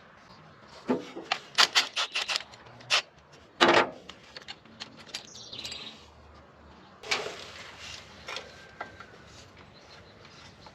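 A quick run of sharp clinks and knocks from hand tools and engine parts during a Ford 460 V8 tear-down, then a short scrape about seven seconds in. A bird chirps faintly in the background.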